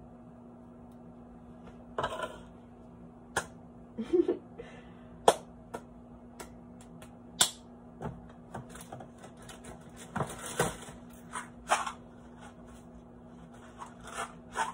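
Scattered knocks, clicks and rustles of things being moved about in a kitchen cupboard and a cardboard box being handled, over a steady low hum.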